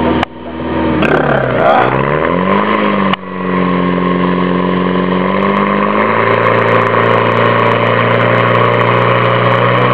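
Portable fire pump engine running hard, its pitch sagging and climbing back a couple of seconds in, then holding steady with a small drop about six seconds in.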